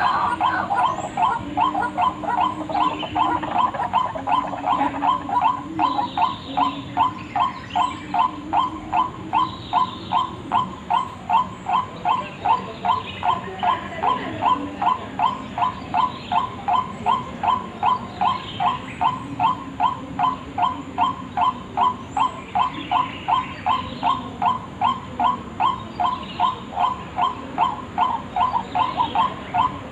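White-breasted waterhen (ruak-ruak) calls used as a bird lure: one call repeated over and over in an even rhythm, about two a second.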